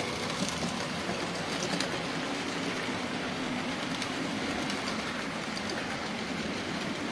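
OO gauge model train, a tank locomotive hauling coaches, running along the track. It makes a steady rumble of wheels and motor with faint scattered clicks.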